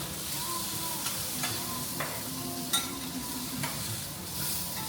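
Food sizzling on a teppanyaki steel griddle, with metal spatulas clicking against the steel about five times, the loudest click near the middle.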